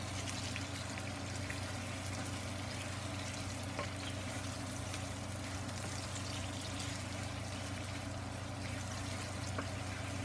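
Ground chicken frying in a non-stick pan, a steady wet sizzle, while a wooden spoon stirs it with a few light knocks.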